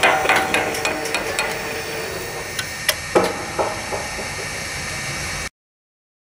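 Metallic clanks and knocks, a cluster at the start and another about three seconds in, some ringing briefly with a falling pitch, over a steady hiss; the sound cuts off suddenly near the end.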